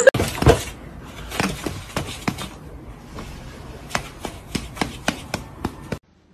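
A cat's paws and claws tapping and scratching on a cardboard scratcher pad: irregular sharp clicks and scratches, a louder thump about half a second in.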